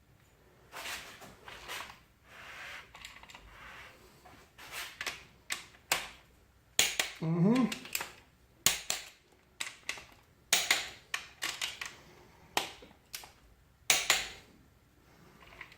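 Torque wrench working the connecting rod bolts of a 6.0 LQ4 V8: a series of sharp clicks, some in quick clusters, with short ratcheting stretches between them, as each bolt is re-checked for torque.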